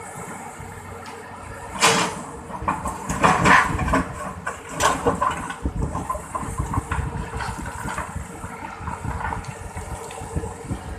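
Excavator's diesel engine running steadily, with several loud, noisy clattering bursts between about two and six seconds in.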